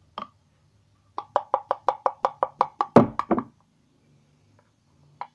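A spoon tapping quickly against the rim of a plastic tub, about seven sharp knocks a second for some two seconds with the loudest near the end, to shake thick white glue off the spoon.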